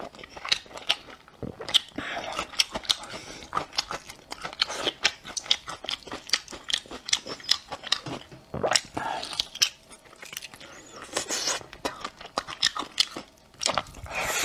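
Close-miked chewing and biting on braised lamb shank, a man gnawing meat and sticky tendon off the bone: an irregular run of sharp mouth clicks and smacks, several a second.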